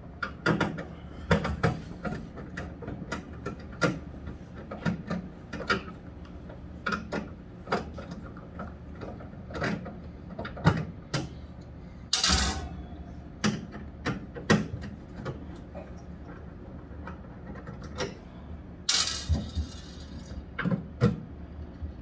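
Scattered clicks, knocks and scrapes of a screwdriver and plastic parts as the control housing in a refrigerator's fresh-food compartment is unscrewed and taken out, with two louder rattles, one about halfway and one near the end.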